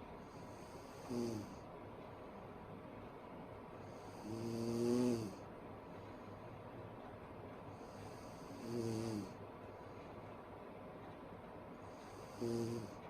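A sleeping woman snoring: four snores a few seconds apart, each dropping in pitch. The second, about four seconds in, is the longest and loudest.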